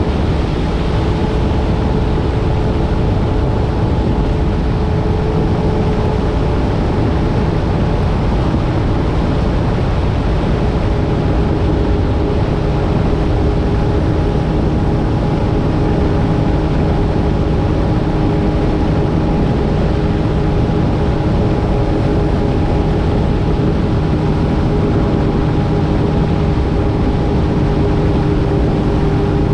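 Jet ski engine running steadily under way, with a constant rushing noise over its hum.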